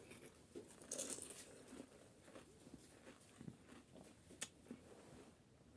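Faint eating sounds close to the microphone: soft chewing with a few small crunches and clicks as crisp panipuri puris are eaten.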